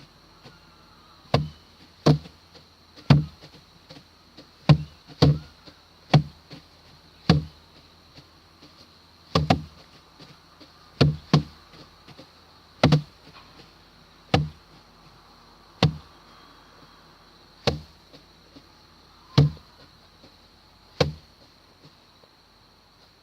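Hand-threshing rice: sheaves of cut rice beaten again and again against a wooden threshing board or box. The heavy wooden thuds come about one every second, at an uneven pace with some quick doubles, and stop a couple of seconds before the end.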